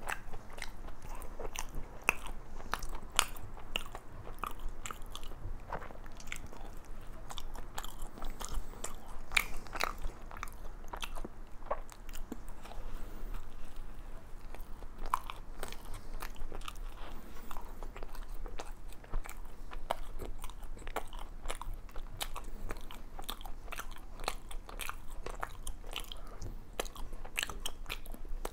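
Close-miked biting and chewing of a chocolate-glazed Krispy Kreme doughnut, with many small, sharp mouth clicks scattered irregularly throughout.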